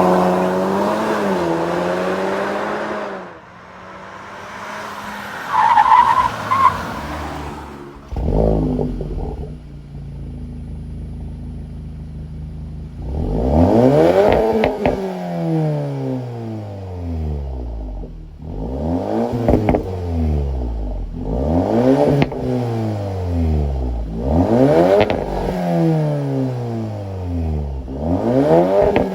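VW T-Roc R's 2.0-litre turbocharged four-cylinder revved through its Akrapovič titanium exhaust. A long rev comes first, then, about halfway through, around five sharp blips of the throttle, each climbing quickly and falling back to idle.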